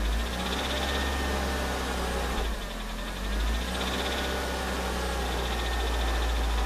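Suzuki Swift Sport engine running after a cold start with a fine, rapid rattling tick. The engine note rises at the start, dips briefly a little past two seconds in, then rises again. The rattle shows only when the engine is cold and goes away above about 2000 rpm or once it warms up; the owner does not know its cause.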